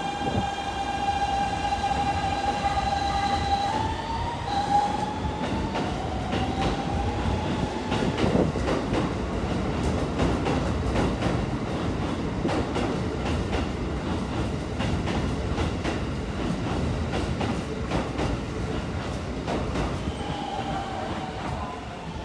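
Keikyu 'singing train' pulling out: its Siemens GTO inverter sounds a clear musical tone that steps up in pitch about four seconds in, like a rising scale, as the train accelerates. The cars then run past with wheel rumble and the clicks of rail joints, and a short musical tone returns near the end.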